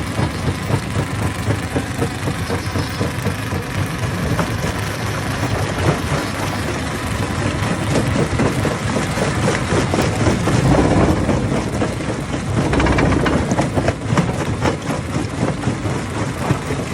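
Hammer-type stone crusher running, a heavy drone with rapid clattering knocks of rock being broken inside it. It swells louder twice, about two-thirds of the way through.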